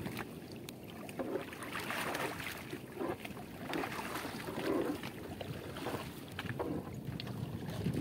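Sea water slapping and splashing against the side of a small fishing boat as a gill net holding small fish is hauled aboard, with wind buffeting the microphone. A few short splashes and knocks come and go.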